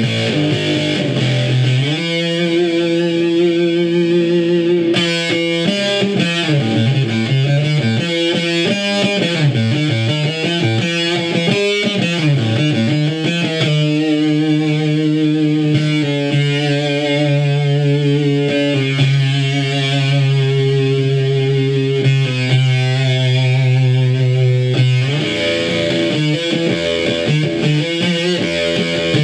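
Electric guitar played through a 1960s Univox Uni-Fuzz fuzz pedal (Shin-Ei Super-Fuzz circuit): thick, distorted fuzz over held notes and changing phrases. The pedal's power supply has been rebuilt, so none of the 120 Hz mains buzz these AC-powered units are known for comes through.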